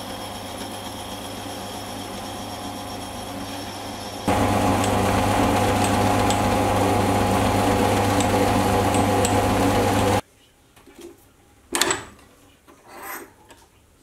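Metal lathe running steadily while the front of a steel tool holder is parted off. About four seconds in it switches to a louder, steady running as a 1/8 inch hole is drilled through the part from the tailstock drill chuck. The sound cuts off abruptly about ten seconds in, leaving a few faint knocks.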